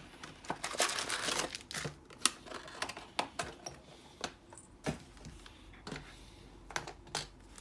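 Trading-card booster pack packaging crinkling as it is handled, most densely for the first second and a half, then scattered crackles and light clicks.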